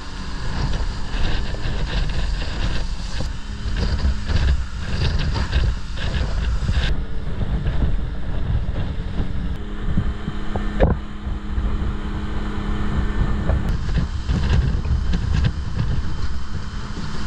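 A 40 hp outboard motor running steadily at speed, driving a small boat through choppy water, with hull spray and water rushing past and wind buffeting the microphone.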